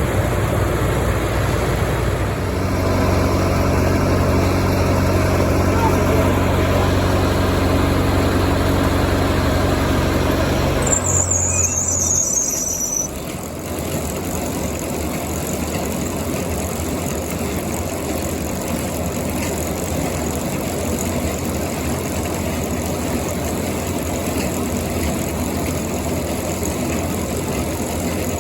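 Farm machinery engine running steadily. About eleven seconds in, the sound changes abruptly, with a brief high squeal, to a rougher, noisier running.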